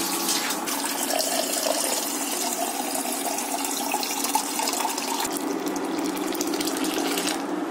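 Water running steadily into a cooking pot as it is filled; the flow stops near the end.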